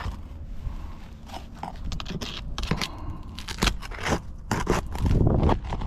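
Asphalt roof shingles being handled and scraped, an irregular run of scrapes, crackles and sharp clicks.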